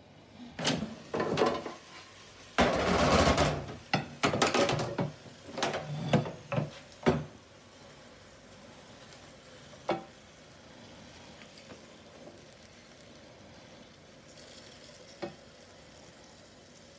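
Ninja dual-basket air fryer drawers being pulled out and set down on a stainless steel sink drainer: a run of clatters and scrapes over the first seven seconds or so. After that, faint sizzling from the freshly cooked sausages in the baskets, with two light clicks.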